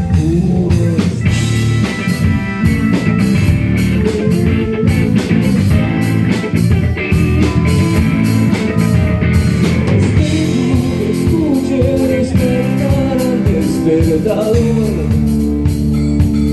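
Rock band music with guitar and drum kit, a pitched lead line gliding up and down over a steady backing.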